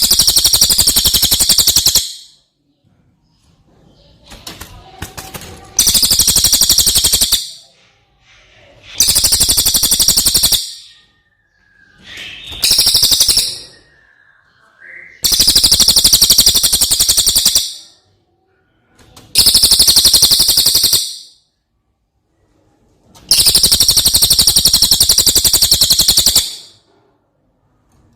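Brown cililin songbird singing in seven loud bursts of very rapid, high, rattling notes, each burst about one and a half to three seconds long with short pauses between.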